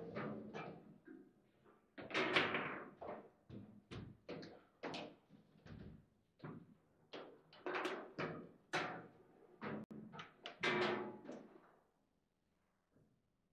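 Table football (foosball) in fast play: irregular hard clacks and thuds of the ball being struck by the rod figures and hitting the table walls. The knocking stops about twelve seconds in.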